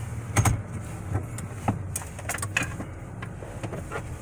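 A steady low vehicle engine hum, with several sharp clicks and knocks over it.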